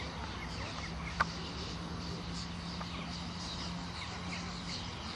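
Open-air ambience of many birds chirping and calling, with a low rumble of wind on the microphone and a faint steady low hum. A single sharp click comes about a second in.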